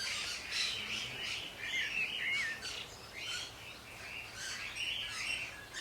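Several birds chirping and singing at once, a continuous chorus of short overlapping calls and warbles.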